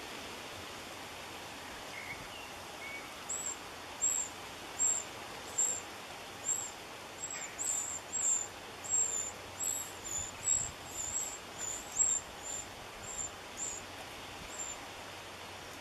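Wren nestlings begging for food: a series of about twenty short, high-pitched cheeps, one or two a second, beginning a few seconds in and most intense around the moment a parent wren feeds them, then stopping near the end. A steady outdoor hiss runs underneath.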